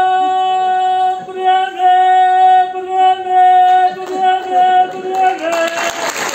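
A man singing one long, high held note with a slight waver, which drops lower near the end. Audience applause breaks in as the note falls.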